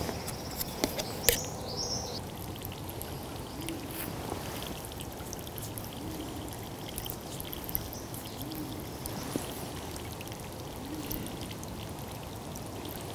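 Steady forest ambience: an even hiss with a few short bird chirps and sharp clicks about a second in, and faint small calls recurring every couple of seconds.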